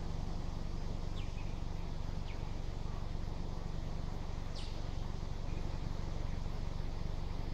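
Forest ambience: a few brief, high, downward-sweeping bird chirps, about three, the clearest just past the middle, over a steady low rumble.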